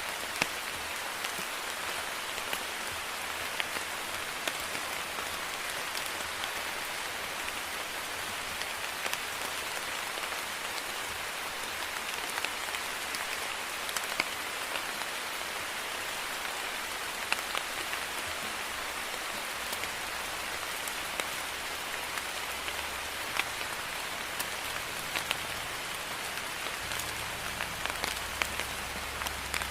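Steady rain falling on a surface, an even hiss with many distinct drops pattering and ticking through it.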